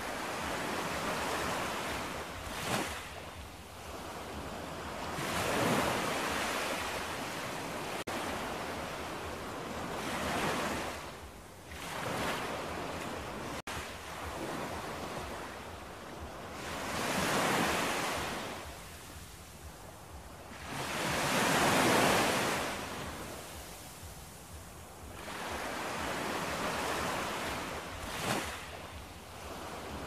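Ocean waves breaking and washing on a shore, the noise swelling and fading every few seconds.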